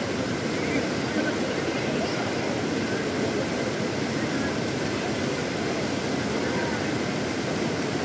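Fast mountain stream rushing over rocks below a small waterfall: a steady, even water noise, with faint voices of bathers mixed in.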